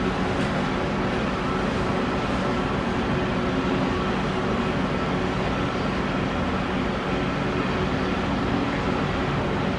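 Cat 330D L excavator's diesel engine running steadily at constant speed under working load while it digs and swings.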